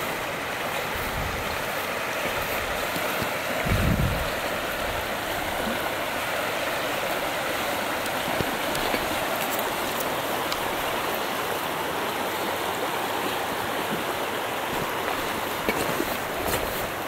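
Shallow river rushing over stones, a steady hiss of flowing water, with a brief low thump about four seconds in.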